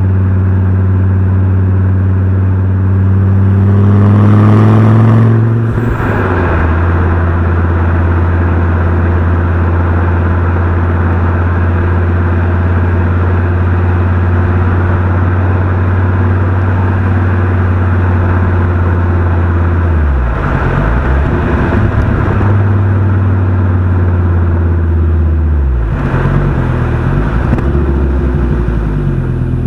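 Fiat Coupé 20V Turbo's turbocharged five-cylinder engine and exhaust under way: it revs up over the first few seconds, drops in pitch about five seconds in, then runs steadily, with the pitch wavering and dipping twice in the last ten seconds.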